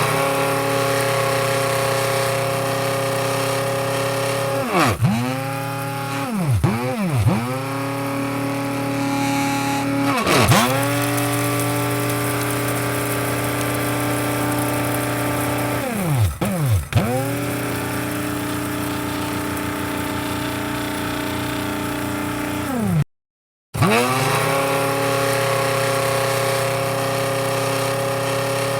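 Electric coffee grinder motor whirring with a steady pitch. Several times the pitch sinks and then climbs back, as the motor slows and speeds up again. The sound cuts out for a moment about three-quarters of the way through.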